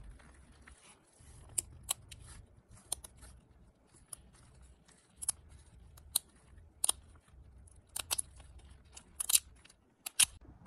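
A series of irregular sharp clicks or snips, about a dozen, the loudest near the end, over a faint low hum.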